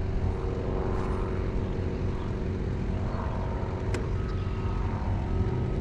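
Small boat motor running steadily as the boat cruises, a low hum with a steady drone, and one sharp click about four seconds in.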